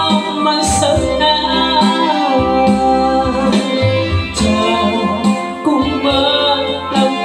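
A woman singing a slow song into a microphone, accompanied by a Yamaha electronic keyboard playing guitar-like chords over a bass line.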